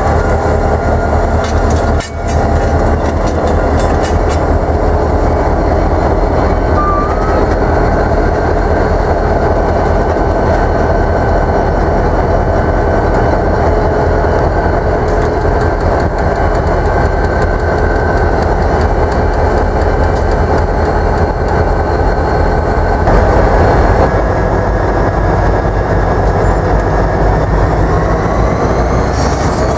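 Diesel-electric locomotives running steadily close by, among them a Belt Railway of Chicago SD38-2 with its 16-cylinder EMD 645 engine, while the train of covered hoppers rolls slowly on the rails. There is a brief break in the sound about two seconds in.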